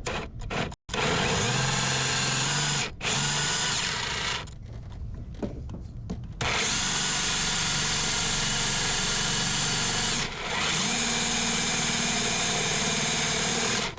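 Power drill with a right-angle attachment boring a hole for a clutch pedal mount, run in long pressured stretches. It starts about a second in, stops briefly twice, and runs lighter for a couple of seconds in the middle.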